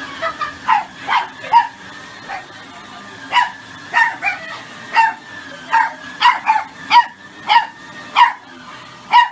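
A dog barking repeatedly in short, high barks, about sixteen of them at irregular intervals, roughly two a second.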